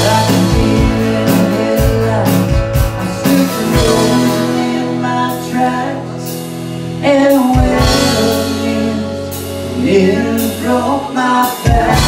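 Live band music: a man singing the lead vocal over two electric guitars, with sustained bass notes and a steady drum beat.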